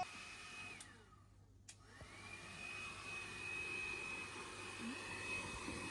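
Electric hair dryer running with a steady high whine. It is switched off just under a second in and the whine falls away; after a click it is switched back on about two seconds in, and the whine rises back to the same steady pitch.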